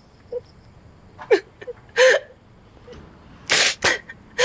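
A young man crying: a few short sobbing whimpers in the first two seconds, then two sharp sobbing breaths near the end, the loudest sounds.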